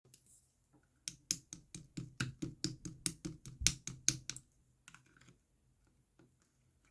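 Slime being pressed and squished by hand, making a quick run of sharp popping clicks, about six a second, from about a second in until just past four seconds. A few fainter clicks follow.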